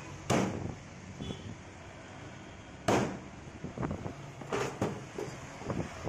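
Heavy fish-cutting knife chopping through a parrot fish onto a wooden chopping block: two hard chops, one near the start and one about three seconds in, then a run of lighter knocks and cuts.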